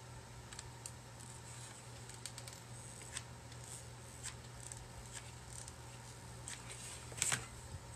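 Faint, scattered small clicks and ticks from a hot glue gun being worked, trigger squeezes and the nozzle tapping the ceramic stand, with a sharper click about seven seconds in, over a low steady hum.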